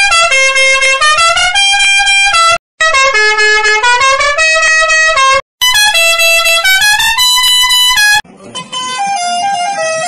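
A musical bus horn playing a short multi-note tune, three times in a row, each about two and a half seconds long with brief gaps between. Just after eight seconds it switches to a quieter, hazier, effect-altered version of the tune.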